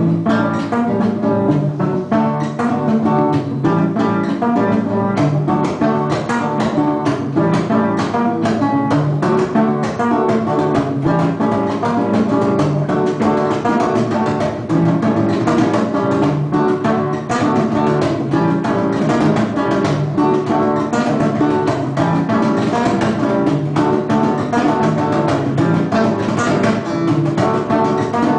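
Trio of acoustic guitars playing an instrumental Argentine gato cuyano, with a busy stream of plucked notes and chords.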